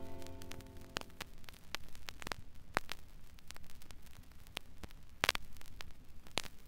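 Vinyl LP surface noise in the silent groove between two songs: faint crackle and scattered clicks and pops over a low hum, with a few louder pops near the end. The last notes of the previous song die away at the start.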